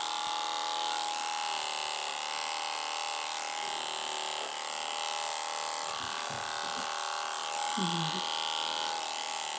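Electric dog-grooming clipper running with a steady buzz, its pitch and level even, as it cuts through a miniature schnauzer's head fur.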